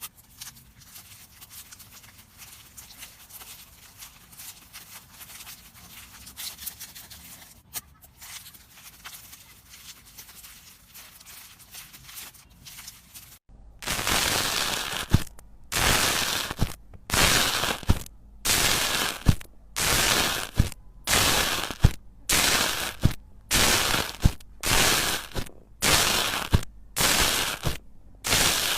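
Slime being handled, with faint crackling and small pops at first. About halfway through it turns into a run of loud crackly presses, roughly one a second.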